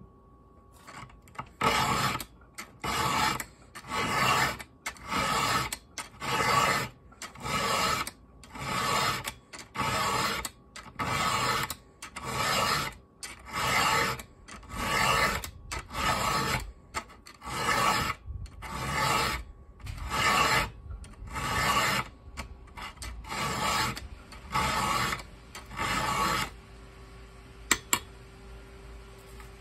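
Round chainsaw file rasping across the cutters of a .404-pitch saw chain in steady push strokes, about one a second, for some two dozen strokes. Sharpening cutters dulled by hitting rocks. The filing stops near the end, and two sharp clicks follow.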